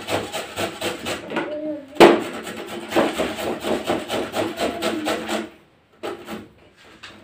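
White radish being grated on a flat metal hand grater: quick rasping strokes, about five a second. A single sharp knock sounds about two seconds in, and the strokes break off near the end before a few more follow.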